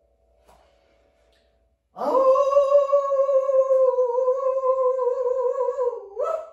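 A woman howling like a wolf: her voice swoops up about two seconds in into one long held note with a slight waver, then dips and slides sharply upward just before it cuts off.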